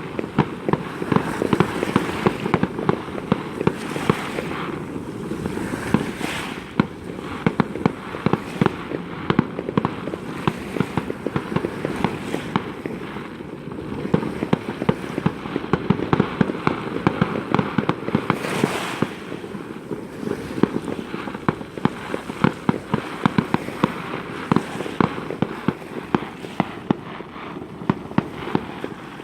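Fireworks going off in a dense, unbroken barrage of bangs and crackling reports, many a second.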